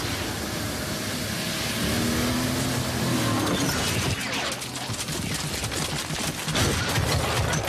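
Car-commercial sound effects of an SUV tearing through snow and rock: a dense rushing rumble, with a wavering mechanical tone near the middle and a rapid crackling clatter through the second half.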